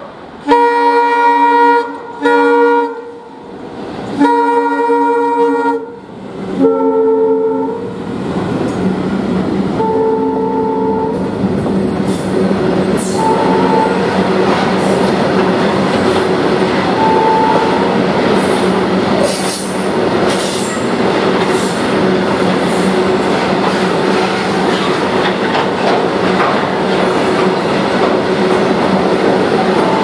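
Twin WDM-3D diesel locomotives with ALCO engines sound their horn four times, a long blast, a short one, then two long ones. The engines then pass with a steady heavy drone as the freight wagons roll by, their wheels clacking and squealing high-pitched from a few seconds later.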